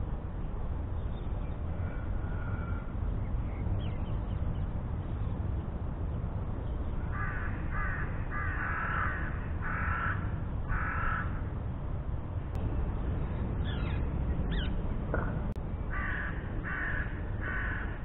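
Crow cawing: a run of about six caws between about seven and eleven seconds in, then three more near the end, over a steady low rumble.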